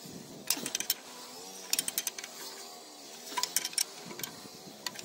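Ratchet wrench clicking in short bursts of a few quick clicks, about every second and a half, as it runs a nut onto a bolt holding a plough's landside bar.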